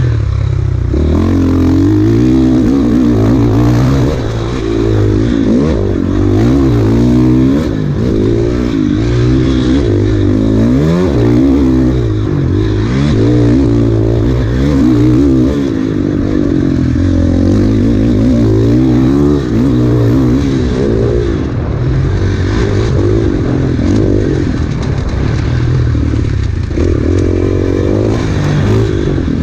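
Off-road motorcycle engine revving hard at racing pace, its pitch climbing and dropping again and again as the rider works the throttle and gears.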